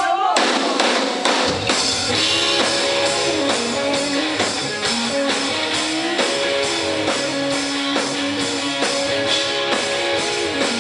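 Rock band playing live at the start of a song: electric guitar first, then the drums and bass come in about a second and a half in.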